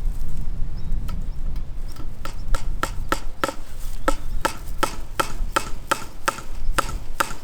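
Hammer tapping a fencing staple into a wooden fence post: quick, evenly spaced strikes at about three a second, each with a short metallic ring. The strikes start about two seconds in, after softer scattered knocks.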